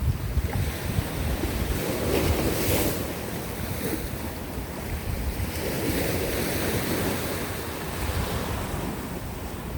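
Sea waves breaking and washing over coastal rocks, with surges of surf about two seconds in and again about six seconds in, over a low rumble of wind buffeting the microphone.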